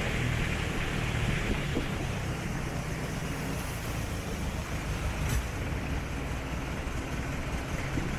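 Canal boat's engine running steadily underway, a low even hum.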